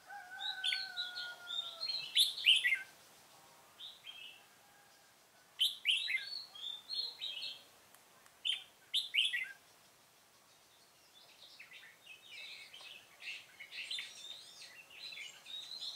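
Oriental magpie-robin singing in short phrases of chirps and whistles, in clusters with brief quiet gaps between, busiest over the last few seconds. A faint long falling tone runs under the first two seconds.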